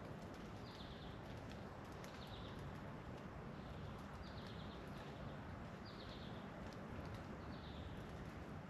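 A bird repeating a short, high call every second or two, faint over a steady outdoor background hiss.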